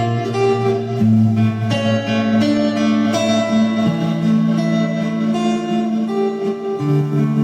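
Instrumental music: plucked, guitar-like notes over held chords and a sustained bass line, with the bass changing pitch about four seconds in and again near the end.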